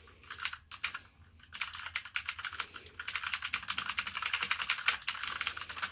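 Typing on an APOINT TUF mechanical keyboard with clicky blue switches: a few scattered keystrokes, then fast continuous typing from about a second and a half in, a dense run of sharp clicks.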